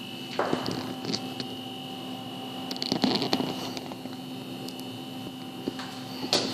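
Steady electrical hum, with a few faint clicks and handling rustles; the loudest cluster of clicks comes about three seconds in.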